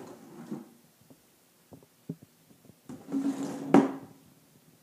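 A plastic milk crate is set down on a concrete floor with one sharp clack about three and a half seconds in, after a few light knocks.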